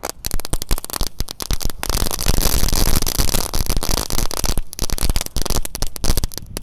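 A pack of dino egg crackling firecrackers (foil-wrapped crackle balls) going off together: a loud, rapid, dense crackle of many small pops, thickest through the middle and breaking into more separate pops near the end.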